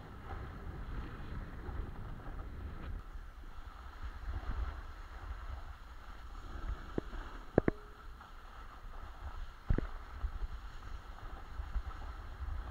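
A snowboard sliding downhill: the board's edge hissing and scraping over the snow, with wind rumbling on the microphone. A few sharp knocks come a little past halfway.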